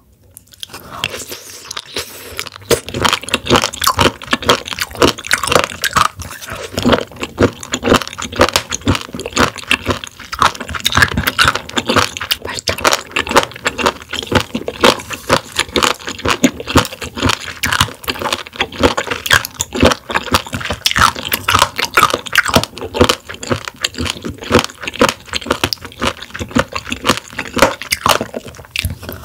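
Close-miked chewing of a mouthful of raw warty sea squirt: a rapid, continuous stream of crunches, starting about two seconds in.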